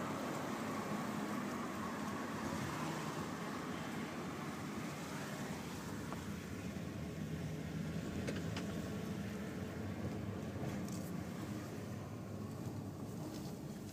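Steady low rumble of a car's engine and tyres heard from inside the cabin while the car rolls slowly, with a few faint clicks.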